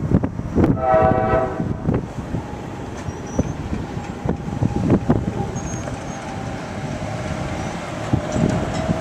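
Train horn giving one short blast about a second in, over the rumble and scattered knocks of a train moving through the grade crossing.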